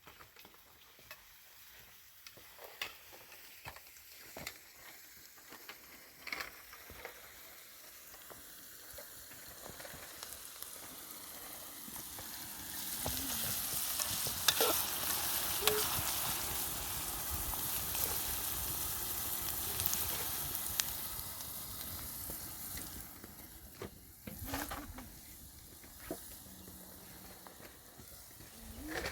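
Food frying in hot oil in a pan. The sizzle swells from about a third of the way in, is loudest in the middle and then eases off, with scattered clicks and scrapes from stirring.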